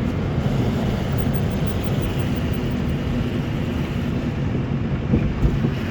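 Engine of road-repair machinery running steadily, a low rumble under a constant hiss.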